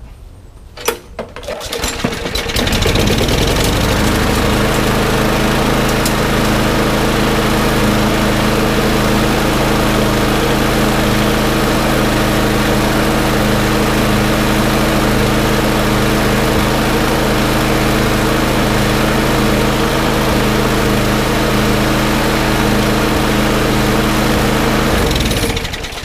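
Craftsman push mower's small single-cylinder engine starting up, catching about two seconds in and running steadily with its air filter off, then shutting down just before the end. It starts up fine without the air filter, so the water- or oil-soaked filter is the cause of the no-start.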